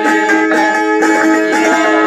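Hungarian citera (fretted zither) played with quick, even strokes: a folk dance tune over steady held drone notes.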